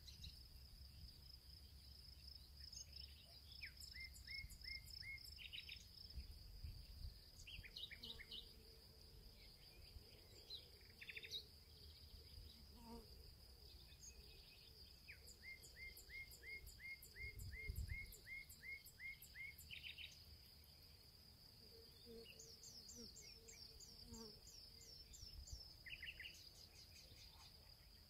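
Faint outdoor ambience of birds chirping over a steady high insect trill. Several small birds call at intervals, including runs of quick, evenly repeated chirps.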